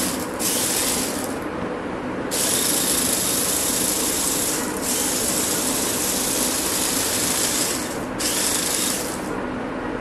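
Electric drive motors and mecanum wheels of a small 3D-printed robot car whirring across a tiled floor in stop-start runs: two short bursts at the start, a long run from about two seconds in with a brief break in the middle, and one more short burst near the end.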